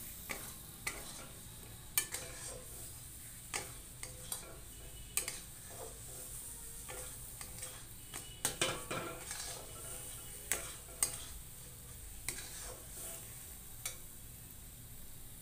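Metal spatula stirring and scraping thick, finished halwa in a metal kadai, with irregular clinks against the pan over a steady faint hiss from the pan.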